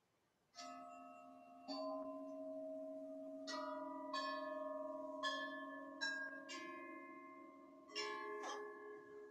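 Metal bells struck one after another, about nine strikes at uneven intervals, each note ringing on and overlapping the next so that a sustained chord builds up.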